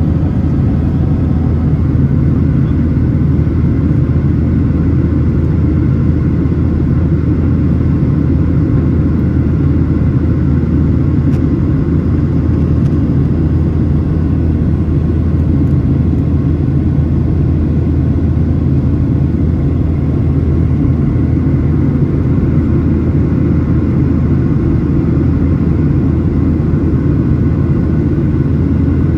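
Boeing 737-900ER's CFM56-7B turbofan engines running at high power during takeoff, heard from inside the cabin as a loud, steady, deep rumble with a faint steady whine above it.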